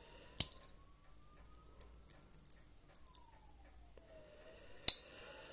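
Two sharp clicks about four and a half seconds apart: the tools of a Victorinox Camper Swiss Army knife snapping against their backspring as they are opened or closed. A faint tone slowly rises and falls behind them.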